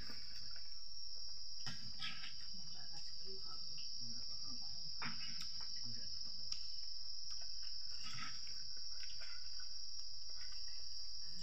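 Steady, unbroken high-pitched chirring of insects, with soft scattered clicks and smacks of someone eating rice and curry by hand.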